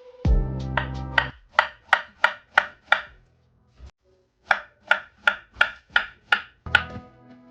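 Knife chopping food on a cutting board: two runs of sharp, even strokes, about three a second, with a short pause between them.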